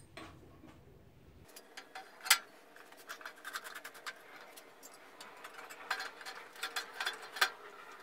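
Scattered light clicks and knocks of metal parts being handled on a Lumberjack BS254 bandsaw while the table is being fitted, with a sharp click about two seconds in and another near the end.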